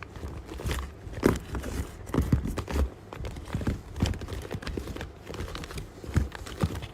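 Paper squishy being squeezed and handled by hand: irregular soft thumps and paper crinkles.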